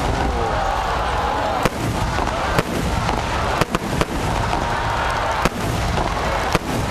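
Starmine fireworks barrage: a continuous crackling rumble of bursting shells with sharp, loud bangs about once a second.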